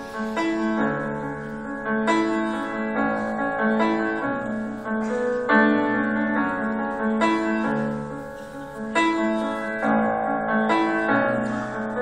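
Piano playing the slow introduction to a ballad, with new chords struck roughly once a second and left to ring over a held low note.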